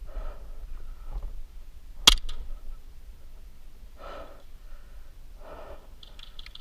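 Faint breathing during an airsoft game, with one sharp crack about two seconds in.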